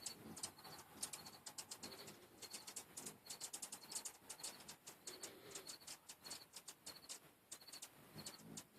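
Hummingbirds chipping and chattering, many short sharp high chips in quick irregular runs, with faint low notes underneath.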